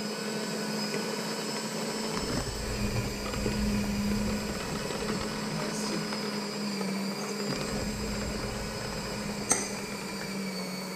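Electric hand mixer running steadily at medium speed, beating butter, flour and sour cream into a crumbly cake-batter mix, with a deeper rumble for a few seconds in the middle. A single sharp click near the end.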